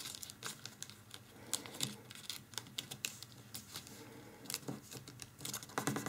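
Folded paper being pressed flat and creased by fingers: faint, irregular little clicks, taps and crinkles of paper.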